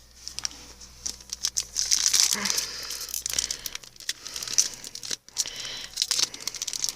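Trading-card pack wrapper crinkling and being torn open by hand: a dense run of irregular crackles that builds about a second and a half in.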